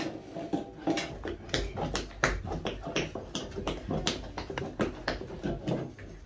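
Long wooden paddle beating and scraping thick barfi paste (cooked khoya with sugar) against an iron karahi, in quick repeated knocks and scrapes about three a second. This is the beating stage that cools the cooked mixture so it sets.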